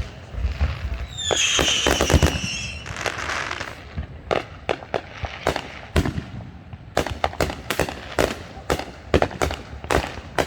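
Fireworks going off: a shrill, slightly falling whistle from a whistling firework about a second in, then a run of sharp bangs and crackles that come thicker in the second half.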